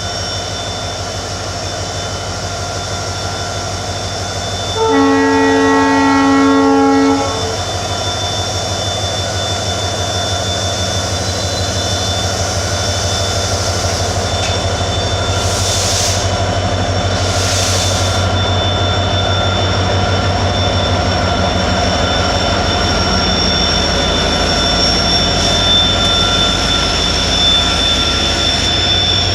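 WDG-4D diesel locomotive sounding its horn once, a blast of several tones about two and a half seconds long, over its steadily running diesel engine. The engine slowly grows louder as the train pulls away, with two short hisses about midway.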